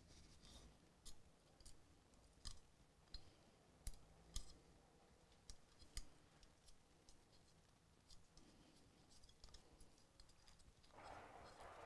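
Faint, scattered small metal clicks of an Allen wrench turning a set screw in an AR lower receiver, with a soft rustle of handling near the end.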